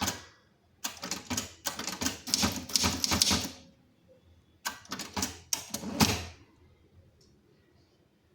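Keys of an old Tamil typewriter striking in quick clusters: a run of rapid strokes lasting about three seconds, then, after a short pause, a shorter burst of a few strokes.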